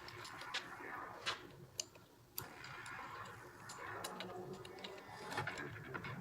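Scattered sharp clicks and light metallic knocks of hand tools on the differential cover bolts as the diff is tightened up, irregular and a second or so apart, over a low hum.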